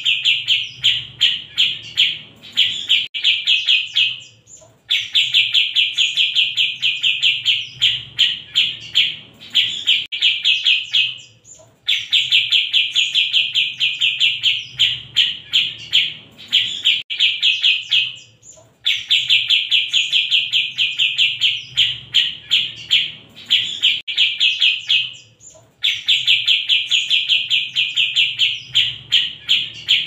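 Cucak jenggot (grey-cheeked bulbul) singing: runs of rapid, high chattering notes, each run several seconds long, broken by short pauses, with the same phrase repeated over and over.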